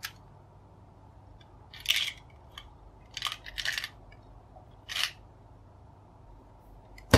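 Plastic clicks and rattles from a small Hello Kitty toy gumball machine being handled and worked: several short clattering bursts a second or so apart, and one sharp click, the loudest, near the end.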